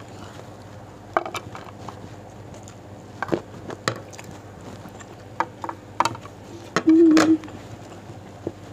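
Close-up mukbang eating sounds: short wet mouth smacks and chewing, with fingers picking at a plate, coming every second or so. The loudest, a little before seven seconds in, is a smack followed by a brief hum.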